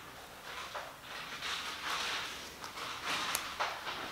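Faint handling noise from hands turning a folding pocket knife over a cloth: soft rustling swishes and a couple of small clicks near the end.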